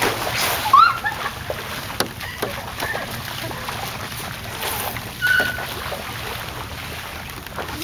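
Bare feet running and kicking through a shallow rainwater puddle, splashing and sloshing water, with a few brief shouts and squeals from girls.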